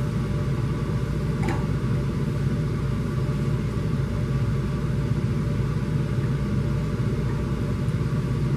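Steady low hum and rumble of room background noise, with a faint short sound about one and a half seconds in.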